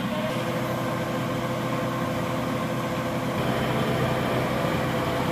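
Off-road 4x4's engine running steadily.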